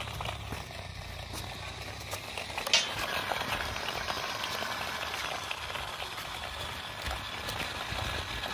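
Small homemade toy car of soda cans and cardboard rolling over rough, gritty concrete: a steady crackle of its metal-capped wheels on grit, with one sharper knock about a third of the way in.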